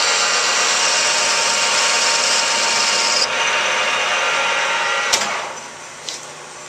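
Metal lathe running, turning a metal workpiece, a loud steady machine noise with a high hiss that stops about three seconds in. A sharp click a little after five seconds, then the lathe runs down and only a faint hum is left.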